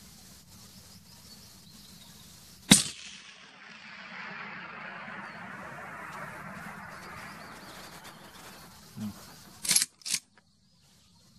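A single shot from a Blaser R8 rifle in 6.5 Creedmoor, the loudest thing here, a little under three seconds in, followed by a rushing sound that fades over about five seconds. Two sharp clacks come close together near the end.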